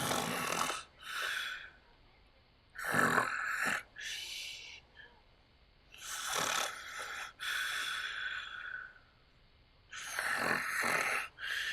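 A man snoring loudly in his sleep: rasping snores that come in pairs, about every three and a half seconds, with quiet pauses between.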